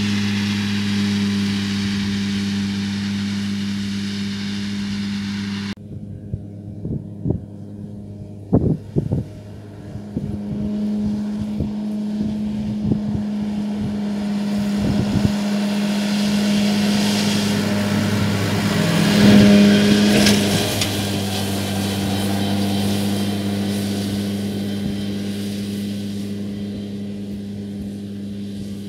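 Case IH Farmall 115U Pro tractor running a Kuhn FC 313 disc mower conditioner while mowing: a steady engine and mower hum. After a sudden drop about a fifth of the way in, a few sharp knocks sound. The hum returns, grows loudest as the tractor comes close about two-thirds through, then fades as it moves away.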